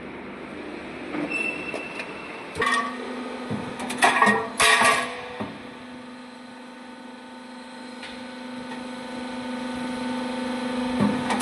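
Roll forming machine for corner snow-guard profiles running: a steady motor hum, with a few short, loud bursts of metal noise about three to five seconds in.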